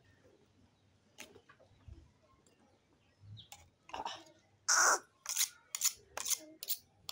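Two knife blades scraped against each other in a run of short metallic scrapes, about three a second, starting a little past halfway; the first scrape is the longest and loudest.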